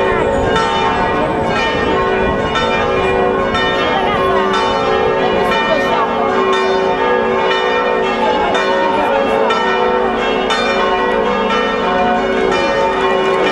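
Church bells pealing, many overlapping ringing tones struck again and again without a break, with crowd voices beneath.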